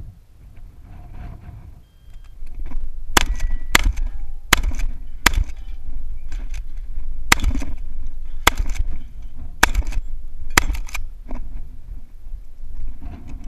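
A Benelli Supernova pump-action shotgun fired about eight times in a quick, uneven string, well under a second and a half apart, with the pump being worked between shots.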